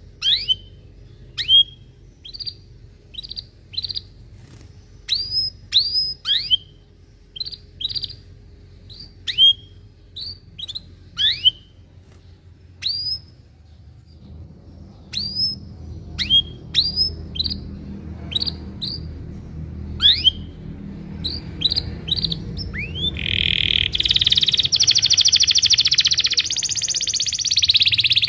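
Domestic canary calling 'cuit cuit': short, sharp chirps, each a quick downward-sweeping note, given singly and in little runs. About 23 seconds in it breaks into a continuous, louder rolling song.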